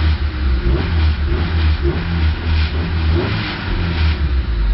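A 1988 Honda Civic's engine running, staying running on its newly replaced ignition switch.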